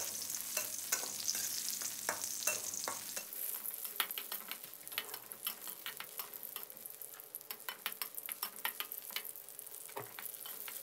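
Metal spatula scraping and tapping against a metal wok, with frequent short strokes, as shallots, garlic and dried chillies are stir-roasted in a little oil. A light sizzle of the oil runs underneath, a little stronger in the first few seconds.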